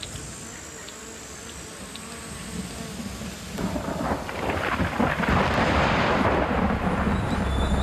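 Thunderstorm: rumbling thunder and heavy rain, swelling up from about halfway through and staying loud.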